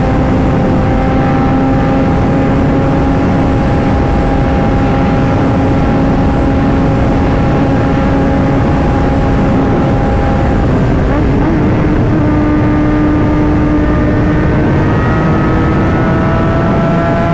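Kawasaki ZX-10R inline-four engine running at a steady cruise under a heavy rush of wind noise. The engine note steps up slightly about eleven seconds in, then holds steady again.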